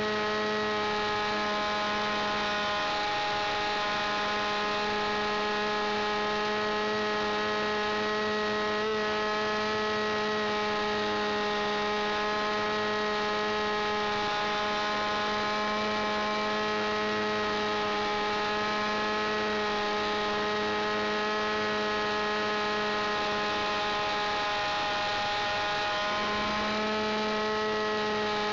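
Small model-aircraft engine running at a steady high-pitched drone, picked up by a camera mounted on board the model in flight; the pitch shifts slightly near the end.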